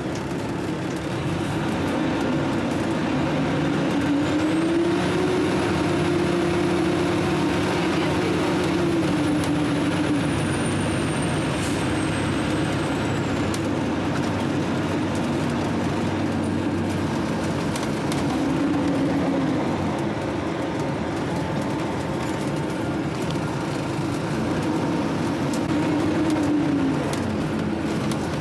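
Fire engine's diesel engine and road noise heard from inside the cab while driving. The engine note rises and falls a few times as the truck speeds up and slows down.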